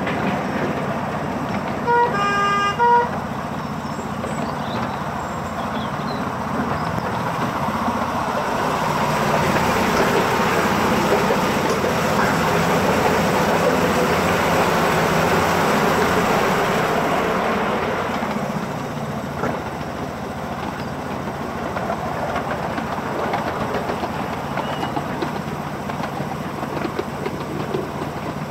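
Running noise of a 7¼-inch gauge miniature train on its track, with two short toots about a second apart near the start. The running noise grows louder through the middle and eases off again.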